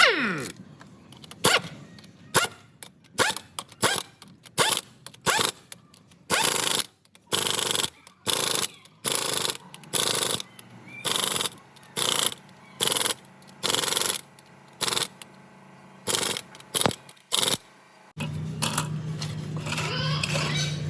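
Repeated short bursts of hissing, about one a second and each a fraction of a second long, typical of an air tool or spray being worked in short blasts. The bursts stop about 18 seconds in, when a steady low hum starts.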